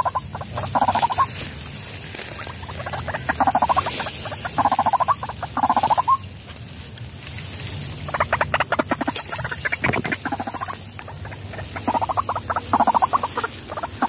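White-breasted waterhen calling: repeated bursts of rapid, pulsing croaks, each lasting about half a second to a second, in groups with short pauses between.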